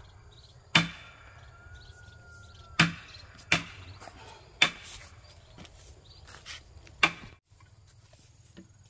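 Sharp knocks of a hand tool striking timber: about five hard strikes at uneven spacing, a second or two apart, with fainter taps between them. This is carpentry work on a house frame.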